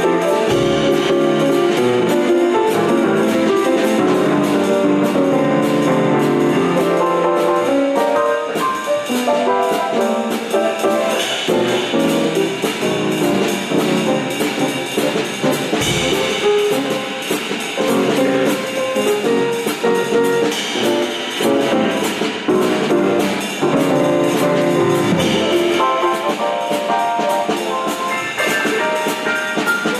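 Instrumental ensemble music with a steady beat, brass-like instruments carrying held notes over it.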